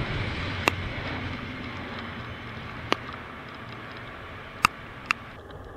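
KiwiRail freight train of container and tank wagons rolling past, its steady rumble slowly fading as the last wagons go by. There are four sharp clicks along the way.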